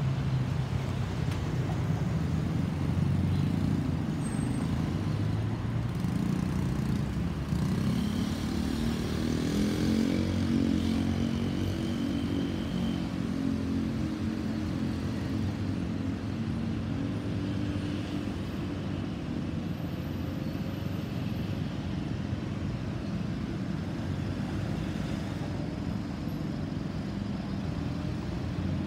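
Distant low rumble of a Boeing 737-800's CFM56-7B jet engines as it climbs away. About a third of the way in, a nearer engine hum that glides in pitch passes through for several seconds.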